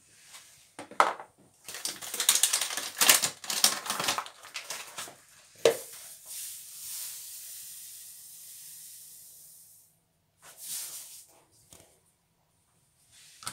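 Paper bag of sugar rustling and crinkling, then granulated sugar poured from the bag into a measuring cup in a steady hiss for about four seconds, fading out. A short rush near the end as the cupful is tipped into a saucepan.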